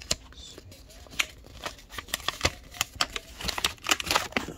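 A small cardboard box being handled and opened, its flaps and a paper warning card rustling with many sharp little ticks. The rustling gets busier over the last two seconds.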